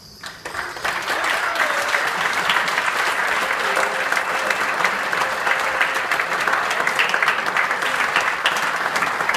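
Audience applauding: many hands clapping, starting at once, building over the first second, then holding steady.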